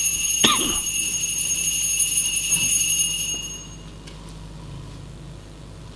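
Altar bells ringing at the elevation of the consecrated host, a steady bright ring that dies away about three and a half seconds in.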